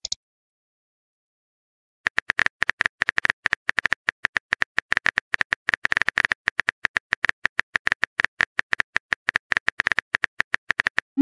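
Phone keyboard typing sound effect: a rapid run of short key clicks, many a second, starting about two seconds in after a silent pause.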